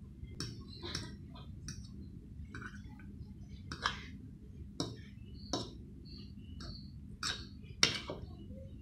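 A metal fork tapping and scraping against a plate while chopping peeled hard-boiled eggs, making irregular clinks about once a second.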